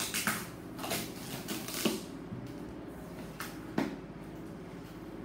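Scattered clicks, knocks and light rustling of objects being handled, with two sharper knocks, one about two seconds in and one near four seconds in.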